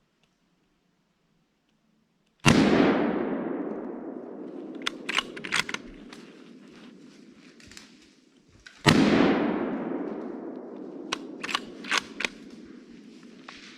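Two gunshots about six seconds apart, each dying away slowly in a long echo, with a few sharp clicks a couple of seconds after each shot.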